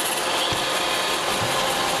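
iRobot Roomba 650 robot vacuum running, its motor and brushes giving a steady whirring noise with a few faint low knocks.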